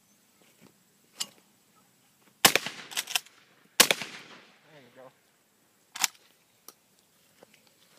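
Two loud shotgun shots at a thrown clay pigeon, about a second and a quarter apart, each with a long echoing tail. A short voice and a smaller sharp crack follow a couple of seconds later.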